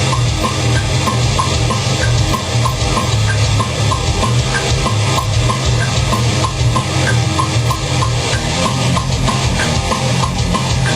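Loud, dense heavy metal music with drums and a heavy low end, with a regular high tick running through it.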